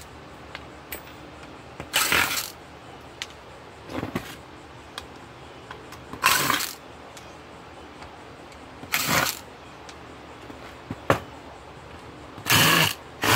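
Ryobi cordless driver run in about six short bursts, each under a second, backing screws out of a metal power-supply enclosure, with small clicks of handling between the bursts.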